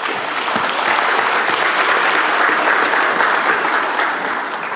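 Audience applauding: a dense patter of many people clapping that starts suddenly and fades near the end. The applause greets a weightlifter called up for his attempt.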